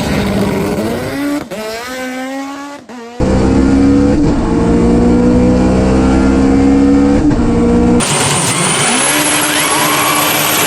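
Car engine sounds in abruptly cut segments: first an engine revving with its pitch climbing, then a steady, louder run at a held pitch from about three seconds in, then a hissier stretch from about eight seconds.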